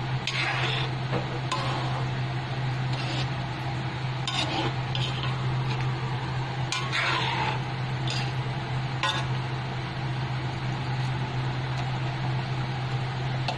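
Ladle stirring and scraping in an aluminium pan of simmering sauce: a string of scrapes and clinks over roughly the first nine seconds, then quieter. A steady low hum runs underneath.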